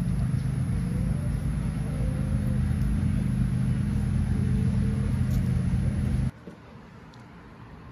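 Steady low motor hum, engine-like, with faint wavering calls from the chickens over it. About six seconds in it cuts off suddenly, leaving a much quieter steady hiss.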